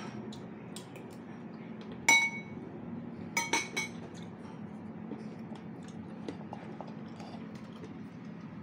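Eating utensil clinking against a bowl while eating noodles: one loud ringing clink about two seconds in, a quick run of three or four clinks about a second later, and faint small clicks in between.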